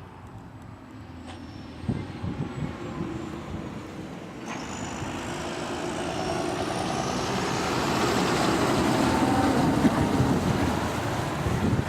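A passing vehicle: a rushing engine noise that builds over several seconds from about a third of the way in, peaks near the end, then begins to ease.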